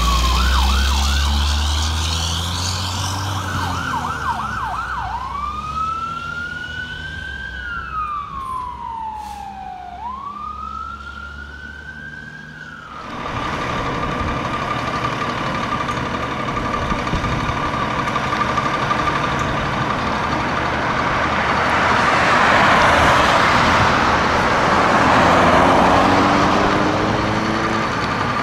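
Fire engine's electronic siren going by, first in a fast yelp and then a slow rising-and-falling wail over the truck's engine. After about thirteen seconds it cuts to a steady high tone, a loud swell of noise and then a pitch rising near the end, as a fire rescue truck pulls out of its bay.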